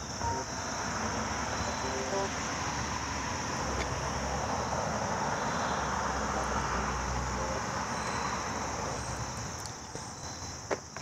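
A steady, high-pitched insect drone over a soft rushing noise that swells and then fades toward the end.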